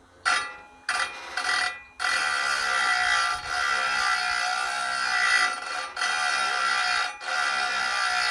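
Small battery-powered diamond grinding wheel grinding a sawmill blade's tooth tips: three short touches, then steady grinding with a high whine and hiss, broken off briefly a few times.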